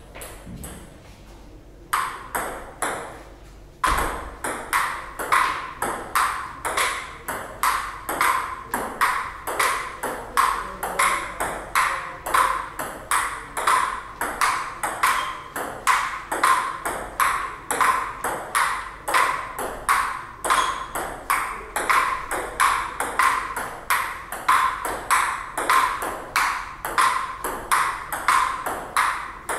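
Table tennis rally: the ping-pong ball clicking off the paddles and the table in a quick, steady rhythm of roughly two to three hits a second. The clicks start faintly about two seconds in and grow louder a couple of seconds later.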